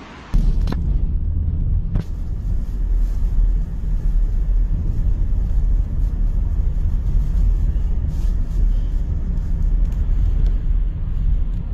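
Steady low rumble of a car driving on a road, heard from inside the cabin. It starts abruptly about a third of a second in, with a few sharp clicks in the first two seconds.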